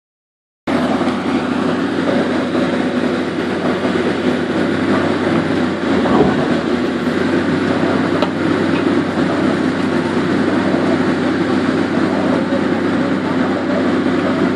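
Heavy construction machinery running steadily with a constant engine hum, and a single knock about six seconds in.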